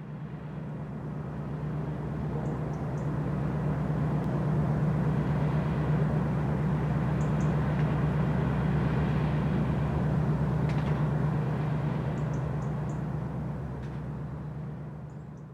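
Small general cargo ship's engine running with a low, steady drone as the ship passes close by, growing louder over the first few seconds and fading near the end.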